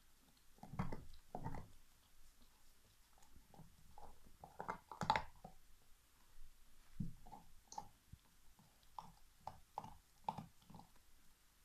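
Alaskan Malamute chewing a big turkey bone: irregular crunches and clicks of teeth on bone, the strongest crunch about halfway through, then a run of smaller quick clicks.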